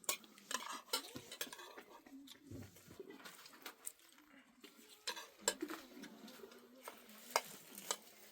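A scattered series of light clinks and knocks of hard objects striking one another, with faint voices underneath.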